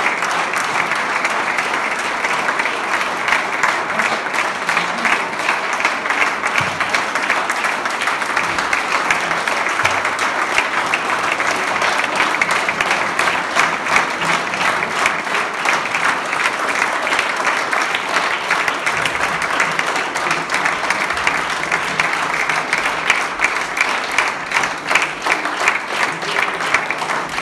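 Audience applauding: dense, steady clapping from many hands that keeps up without a break.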